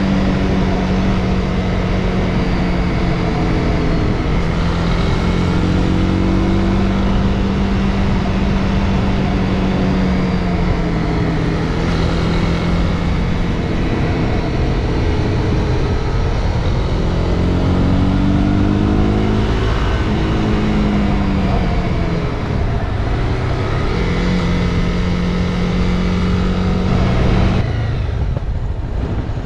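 Motorcycle engine running on the move, its pitch rising and falling again and again with throttle and gear changes, over steady wind noise on the microphone. Near the end the engine note cuts off suddenly.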